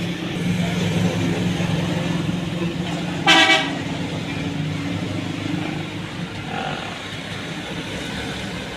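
Street traffic with a steady engine hum; a vehicle horn toots once, briefly, about three seconds in.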